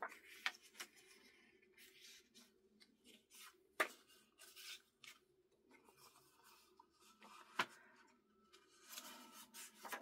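Paper pages being handled and folded along their scored hinges: soft rustling and rubbing with a few sharp paper clicks, the clearest about four seconds in and again near eight seconds.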